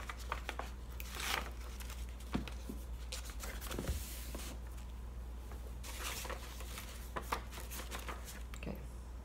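Paper envelopes being handled: scattered rustling and crinkling of paper with small sharp taps and clicks, over a low steady hum.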